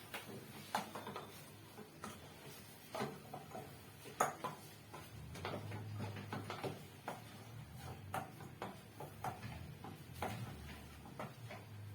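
A spoon knocking and clicking against a cooking pot as pork is stirred, in short irregular taps.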